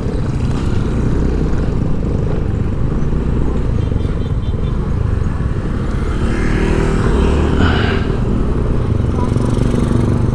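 Street traffic: motor vehicle engines, motorcycles among them, running without a break, with one engine louder for a couple of seconds about six seconds in.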